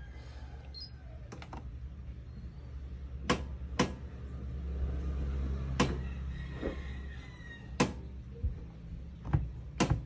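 Sharp clicks of an Electrolux front-loading washing machine's control-panel buttons and door latch, about five spread over several seconds, over a low hum from the machine that swells in the middle. The buttons are being pressed to reset a door lock that is stuck shut.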